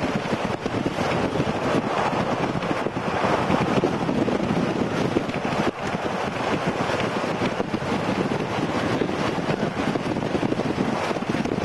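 Steady wind rushing over the camcorder microphone, mixed with the road noise of a vehicle driving.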